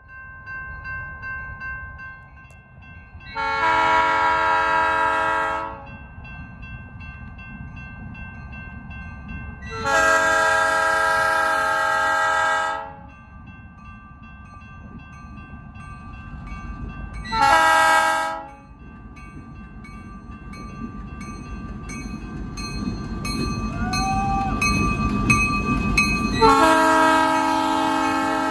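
Diesel locomotive's multi-chime air horn sounding the grade-crossing signal, two long blasts, a short one and a final long one, over a crossing bell ringing steadily. The locomotive's engine and wheels rumble louder as it draws up to the crossing during the last blast.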